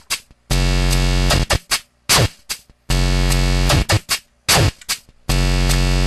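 Circuit-bent Hing-Hon EK-001 toy keyboard putting out distorted electronic sound in a repeating loop. Each pass is a block of harsh, buzzing tones, then a quick downward pitch swoop and a few clicky hits, then a brief silence. The loop comes round about every two and a half seconds.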